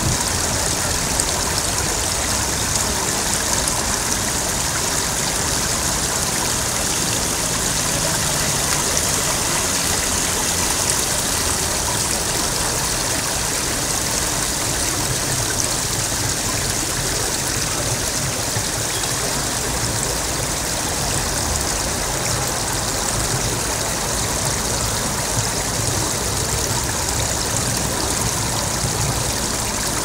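Ground-level fountain jets arcing up from nozzles in the paving and splashing steadily onto the wet stone.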